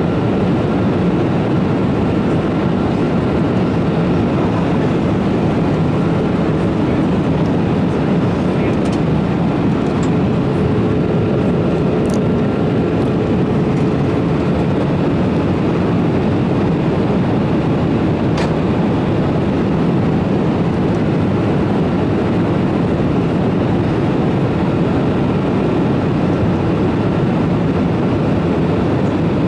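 Steady cabin noise of a Boeing 787 in flight: an even rush of air and engine noise, with a faint thin high tone held underneath.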